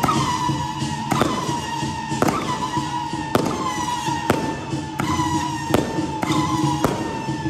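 A large gong in a Taiwanese temple procession ensemble, struck about once a second; each stroke rings and dips slightly in pitch as it fades, over a steady din of other percussion.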